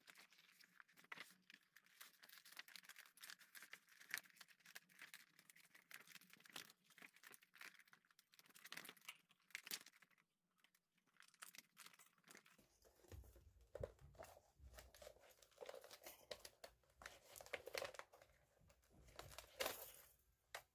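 Paper tearing and crackling as a spiral notebook is pulled apart by hand, its pages ripped free of the spiral binding: a quick, dense run of small crackles and tears. Duller handling noise joins in a little over halfway through.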